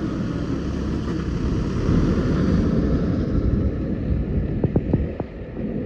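JCB 3DX backhoe loader's diesel engine running with a steady low rumble. A few sharp knocks come in quick succession near the end.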